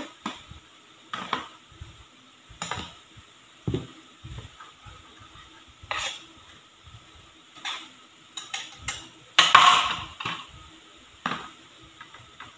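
Metal loaf pan of flour and baking powder being handled: irregular light clinks, taps and scrapes of the pan, with one louder scrape lasting under a second about nine and a half seconds in.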